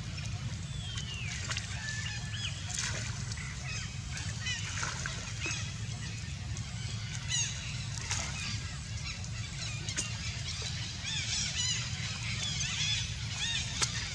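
Young macaques playing in water, giving many short, high squeals and chirps that come thicker near the end, over a steady low rumble.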